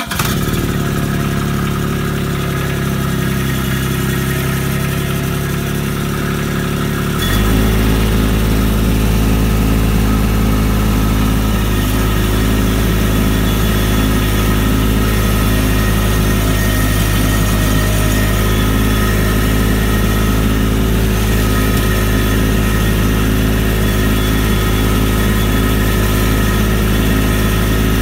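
Toro Dingo compact utility loader's engine running steadily, getting louder and deeper about seven seconds in as it is throttled up to drive with concrete blocks on its forks.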